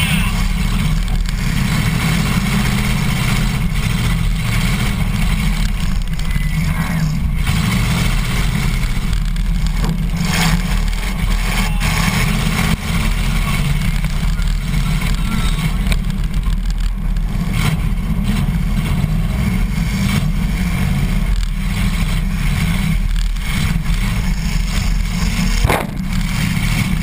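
Demolition derby car's engine running loud with a heavy low rumble, heard from inside its stripped-out cabin, with a few sharp bangs along the way.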